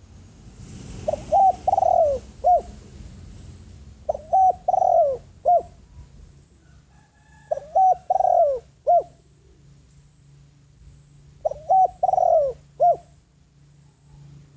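Spotted dove cooing: four phrases of three to four coos each, one phrase every three to four seconds.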